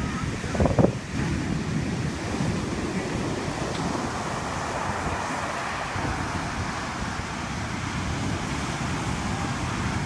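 Heavy storm surf breaking and washing up the beach, a steady roar of surging water. Gusts of wind buffet the microphone briefly, just under a second in.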